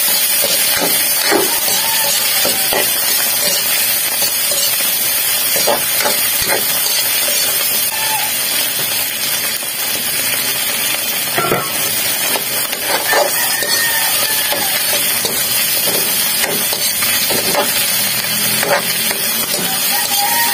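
Chopped onion and tomato sizzling steadily in hot oil in an aluminium wok, with a metal ladle scraping and knocking against the wok at irregular moments as they are stirred.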